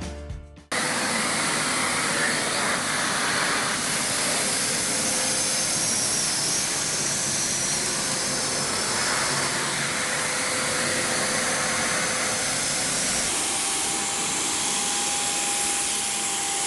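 Bosch UniversalVac 15 wet/dry vacuum cleaner's 1000 W motor running at full suction: a steady, loud rushing hiss with a faint whine, starting abruptly under a second in.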